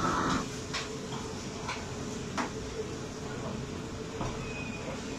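Commercial kitchen noise: the steady rush and hum of the extractor hood and wok burners, with a few sharp metallic clinks of utensils on woks or pans.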